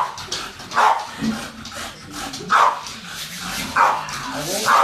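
Dog barking, about five short barks at irregular intervals.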